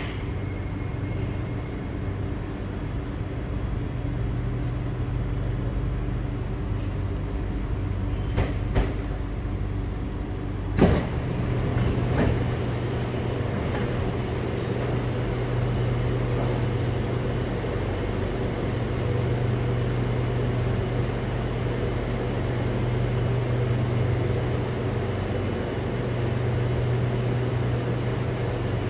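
Inside an SMRT C751B metro train with PMSM traction, a steady running hum as it pulls into a station and stands, with a sharp clack about eleven seconds in.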